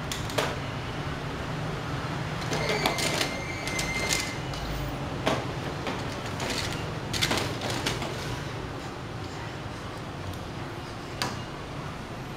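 Plastic toy cars knocking and scraping on a tile floor: a string of irregular clatters, with a short thin squeal about three seconds in.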